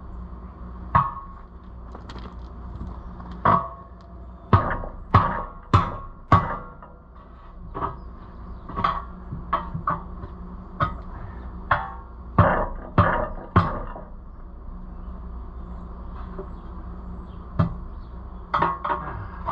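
Hammer blows beating a tractor tire's bead onto its rim: sharp, irregular strikes, mostly half a second to a second apart, with a pause of a few seconds before the last few.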